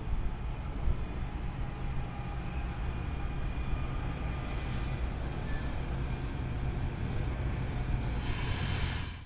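An NJ Transit train running past: a steady low rumble of wheels and running gear on the rails, with faint high squealing tones over it. A rise of hiss comes in about a second before the end, and the sound cuts off suddenly.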